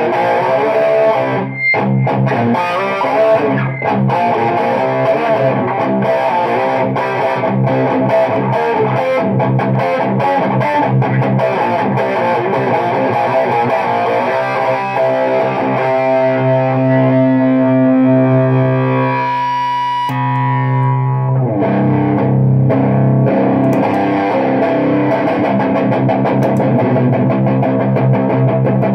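Electric guitar played through an EnchanterFX Portal Fuzz Deluxe fuzz pedal with its boost switched on, giving a thick distorted tone. The guitarist plays a run of notes, then holds a chord for several seconds, breaks off briefly past the middle and slides down in pitch before playing on.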